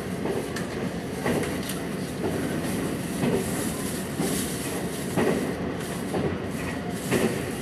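Local passenger train running at speed, heard from inside the carriage: a steady rumble of wheels on rail with sharp clacks about once a second.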